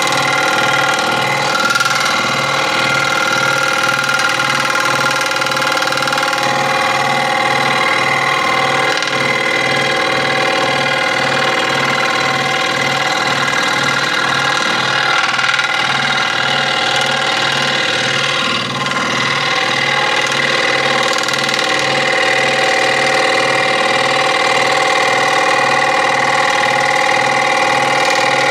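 Electric scroll saw running steadily, a constant machine drone with a regular low pulse about twice a second.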